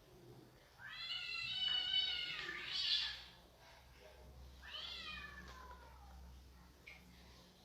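A cat meowing three times: a long call about a second in, a short one, then a call falling in pitch around five seconds in.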